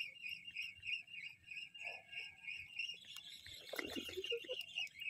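A steady chorus of high-pitched insect chirps, pulsing about four or five times a second, with a few faint low sounds about four seconds in.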